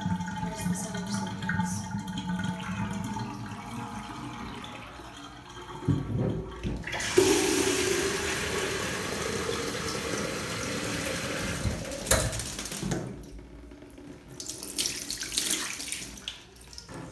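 Water running from a bathtub tap for about six seconds, starting about seven seconds in and stopping suddenly, then shorter splashes of water in the tub while a small dog is bathed.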